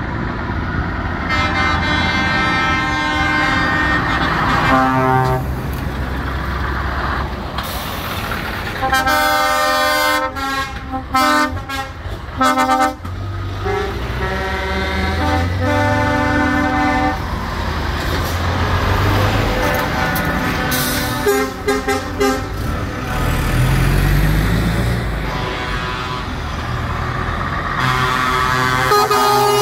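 Trucks passing in a convoy, their horns sounding again and again: long held blasts and strings of short toots over a steady diesel engine rumble, with an engine revving up briefly about two-thirds of the way through.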